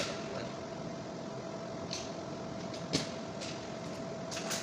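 A steady machine hum fills the room, and three light clicks come from handling electrical wire, about two, three and four and a half seconds in, the middle one the sharpest.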